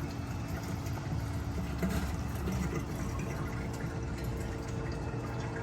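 Water trickling and splashing in a coral aquarium, continuous, with a steady low hum under it.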